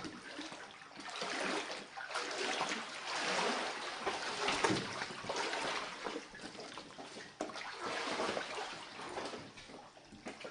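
Floodwater several inches deep on a floor splashing and sloshing in irregular swishes as someone wades through it.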